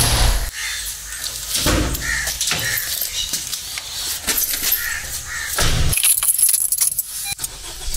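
Car door opened and the car boarded, with a run of clicks, knocks and rattles, along with short harsh calls repeated several times.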